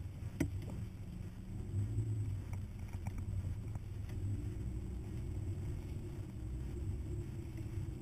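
Hummer driving slowly over a rough dirt track: a low engine and drivetrain rumble, its revs rising and falling gently. A sharp knock comes about half a second in, and a few lighter rattles follow a couple of seconds later as the truck goes over bumps.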